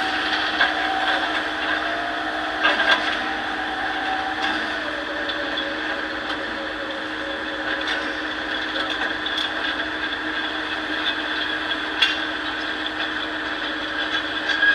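Excavator's diesel engine running steadily with a hydraulic whine that drops in pitch about five seconds in. Stones knock sharply against metal a few times.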